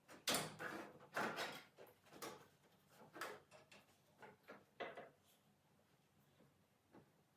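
A series of short scraping and sliding sounds, about ten in five seconds and loudest in the first second and a half, like parts or tools being moved on a hard surface.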